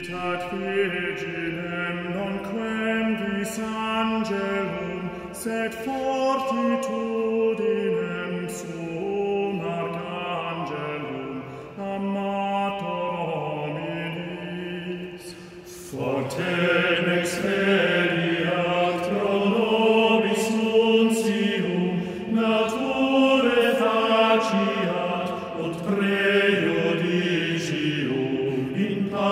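Male vocal ensemble singing a medieval Latin hymn a cappella in a church, several voices in sustained, slow-moving lines. About halfway the singing briefly breaks off, then resumes louder and fuller.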